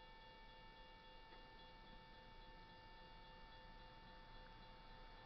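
Near silence: a faint, steady high-pitched whine over low hiss.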